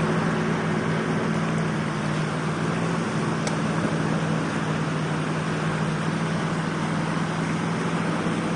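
Fast floodwater rushing, with a steady low engine drone from a box-bodied off-road truck fording the river.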